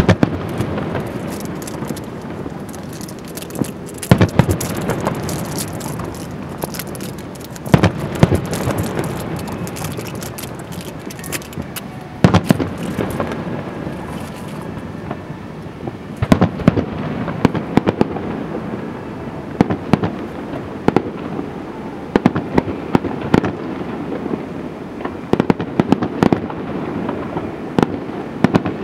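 Fireworks display: aerial shells bursting in sharp booms every few seconds, the loudest about 4, 8 and 12 seconds in, with a dense run of smaller pops and crackle between them.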